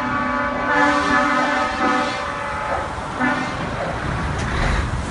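A truck's air horn blows one long blast and then, about three seconds in, a short second blast, over the running engines of approaching trucks.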